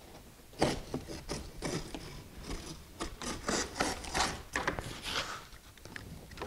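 Knife blade slicing through a taut nylon kayak skin: an uneven series of short scratchy strokes, about three a second, easing off near the end.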